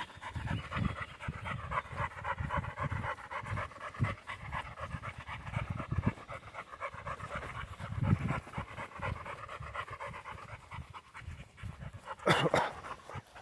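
German spaniel (Deutscher Wachtelhund) panting rapidly and steadily as it walks at heel, with one brief louder rustle or bump near the end.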